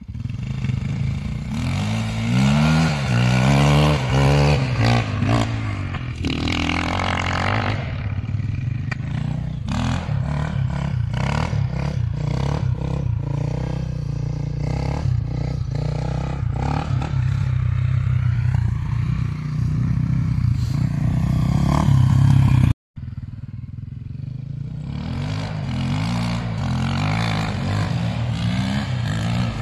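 KTM EXC 450 four-stroke single-cylinder enduro engine being revved in blips, its pitch climbing and falling, then running steadily with rapid, uneven exhaust pulses before more revving near the end. The sound cuts out completely for a moment about three-quarters of the way through.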